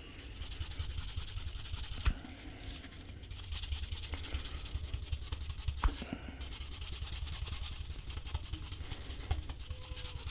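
Canvas cloth rubbed quickly back and forth along a waxed leather edge, burnishing the beeswax-paraffin polish into the painted edge; a steady fast rubbing with a couple of light knocks.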